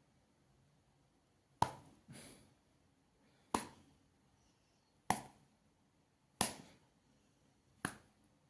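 A series of sharp smacks, six in all, spaced roughly a second and a half apart, each dying away quickly.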